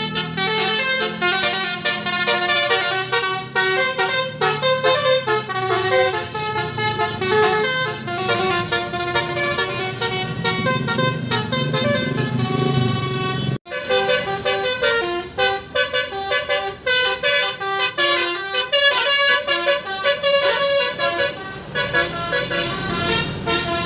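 Indonesian 'telolet basuri' multi-tone bus horn playing a fast tune of changing notes over a low hum. The tune breaks off for an instant about 14 seconds in, then carries on.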